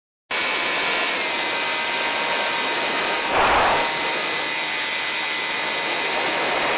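Onboard audio of an electric FPV model plane in flight: a steady rush of motor, propeller and wind with a constant whine, cutting in suddenly after a moment of silence and swelling briefly a little over three seconds in.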